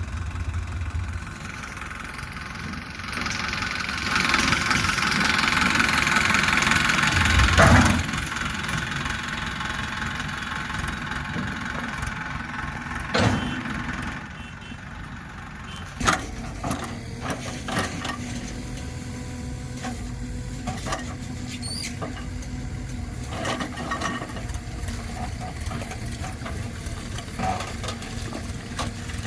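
Diesel engine of a JCB backhoe loader at work. It revs up harder for a few seconds near the start, then runs steady, with scattered metallic knocks and clunks through the second half.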